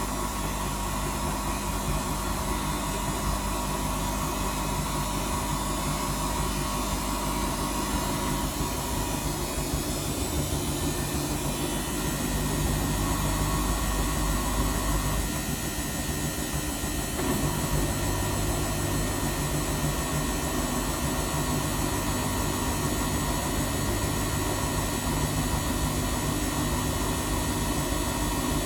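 Samsung front-loading washing machine on a spin cycle: a steady motor hum and drum rush, its tones shifting a few times.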